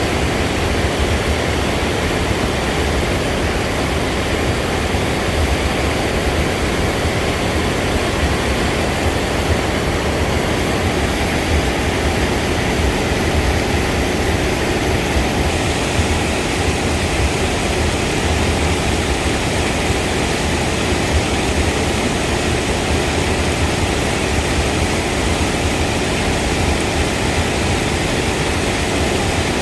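Steady, loud rush of a waterfall, an even roar of falling water.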